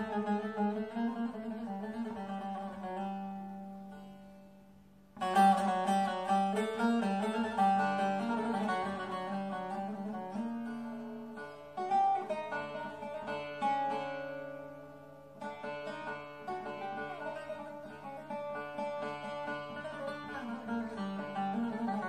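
Instrumental Turkish zeybek tune on classical Istanbul kemençe, bowed, and bağlama, plucked. The music fades almost away about four seconds in and comes back loudly a second later.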